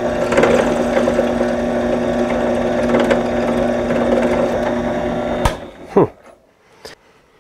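Ryobi benchtop drill press running steadily as its bit drills a small hole into a steel inner tie rod end. About five and a half seconds in it is switched off with a click and the motor winds down in a falling tone, followed by a few small clicks.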